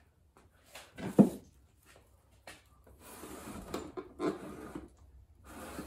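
Workbench handling noises: a hammer, brass drift punch and piston being picked up, moved and set down on a wooden bench, with a solid knock about a second in. Later, rubbing and rustling as the piston is worked in a shop cloth.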